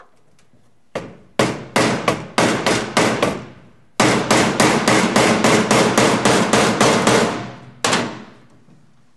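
Hammer striking the end of a screwdriver held in a stuck screw on a metal avionics case, to shock the screw loose. One blow about a second in, a quick run of blows, a short pause, then a longer run of about four or five blows a second, and a single last blow near the end, each with a short ringing decay.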